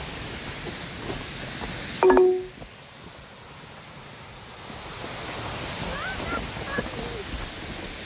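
Brook water rushing over rocky cascades. About two seconds in, a short, loud electronic phone notification beep from Facebook Messenger cuts across it.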